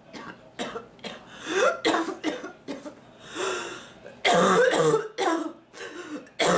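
A woman in a coughing fit: a run of short coughs in quick succession, a drawn-in breath about three seconds in, then the loudest coughing just after four seconds.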